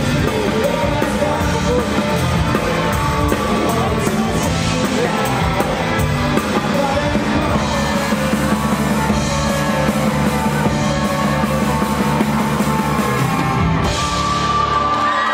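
Rock music with singing over drums and bass. About a second before the end the drums and bass drop away and a single held note rings on.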